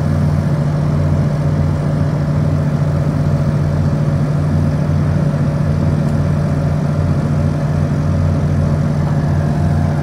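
Heavy engines of the cranes hoisting the Space Shuttle Enterprise orbiter, running steadily under load with an even, low drone.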